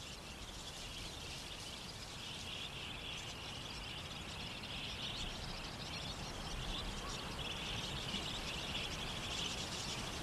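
Soft outback ambience: a steady hiss with faint bird chirping and a high-pitched chorus that swells twice.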